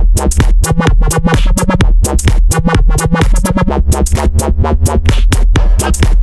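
Instrumental section of an electronic dance track: a heavy bass line under a dense drum-machine beat.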